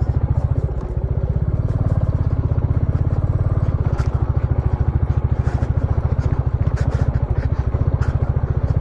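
Royal Enfield Classic 350's single-cylinder engine running on, a steady even thump, as the motorcycle rides over a rocky dirt track. Stones and gravel clatter under the tyres now and then.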